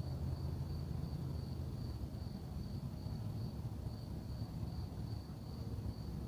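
Crickets chirping in an even, high, pulsing trill, over a steady low rumble.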